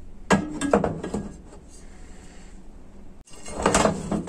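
Hard objects being handled on a bench: several sharp knocks and clicks in the first second, then a denser run of clatter near the end after a brief dropout.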